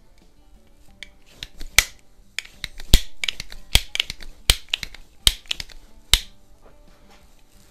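Benjamin Franklin Model 137 multi-pump .177 pellet pistol being worked by hand. A run of about a dozen sharp clicks and clacks from its mechanism comes over about five seconds, the loudest about three seconds in.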